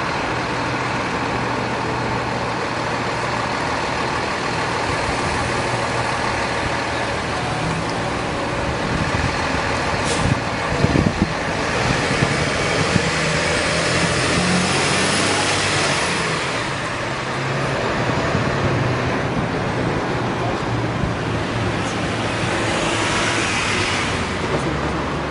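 City street traffic: steady road noise, with a box truck passing about twelve seconds in and a car passing near the end. A few sharp knocks come just before the truck goes by.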